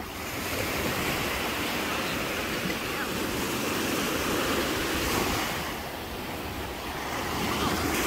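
Small Atlantic surf breaking and washing up onto a sandy beach in a steady rush, easing about six seconds in and building again near the end.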